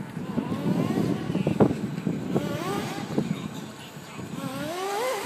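Traxxas RC car's motor whining as it accelerates, its pitch rising twice, over the rough noise of the car running. There is a sharp knock about one and a half seconds in.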